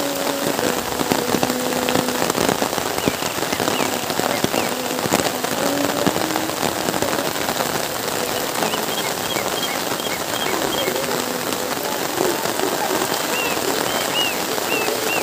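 Heavy rain falling steadily, a dense patter of drops.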